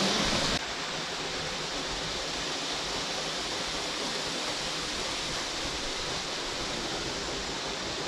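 Steady rush of a waterfall, loud and close at first, dropping sharply about half a second in to a quieter, even hiss of falling water heard from farther off.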